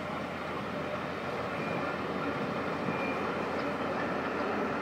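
Steam train running, a steady rumbling noise that slowly grows louder.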